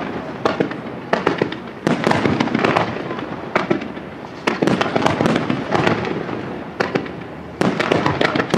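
Night aerial fireworks display by Gioiese Fireworks: shells bursting one after another as a volley of sharp bangs and pops, coming in dense clusters about every second.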